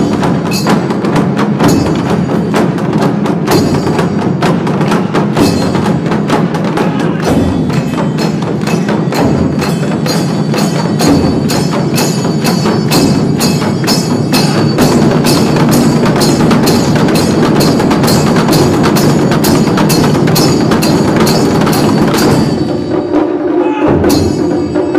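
Ensemble of Japanese taiko drums (wadaiko) beaten with sticks, playing a fast, steady rhythm of sharp, loud strokes.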